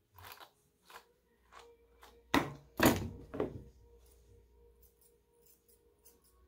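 Grooming shears and tools being handled close to the microphone: a string of sharp clicks and knocks, loudest in a cluster about two and a half to three and a half seconds in, then a few faint snips.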